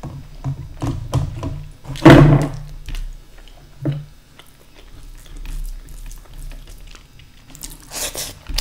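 Close-miked eating by hand: fingers working through wet curry in a steel bowl and wet mouth chewing, made of scattered small clicks and smacks. There is one loud wet squelch about two seconds in, and another wet smack near the end as a handful goes into the mouth.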